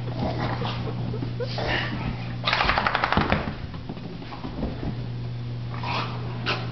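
Small short-haired puppy frantically rubbing and scrambling on a fabric couch and towels to dry off after a bath, with scrapes and rustling. About two and a half seconds in comes a burst of rapid rattling clicks lasting about a second, the loudest part.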